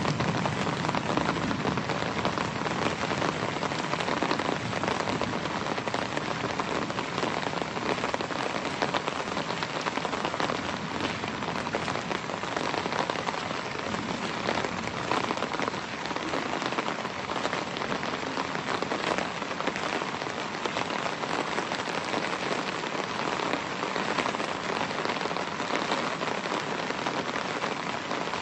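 Steady rain falling, a dense patter of drops over an even hiss that holds at the same strength throughout.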